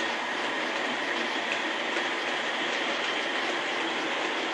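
Model train running along the track: a steady whirring rumble of the motor and wagon wheels on the rails, with a few faint ticks.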